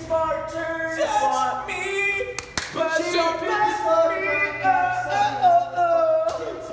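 Unaccompanied singing voices, with held notes that slide up and down, and one sharp click about two and a half seconds in.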